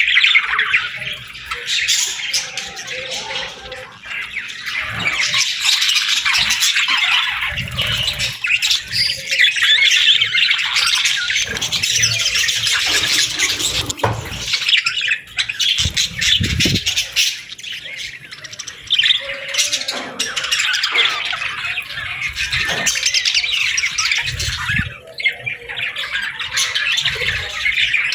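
A group of budgerigars (parakeets) chattering continuously, a dense mix of overlapping chirps, warbles and sharper squawks.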